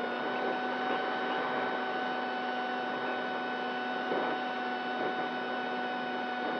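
XK A1200 RC glider's electric motor and propeller running at steady throttle in flight: one steady whine over a hiss of rushing air, as heard from the camera mounted on the plane.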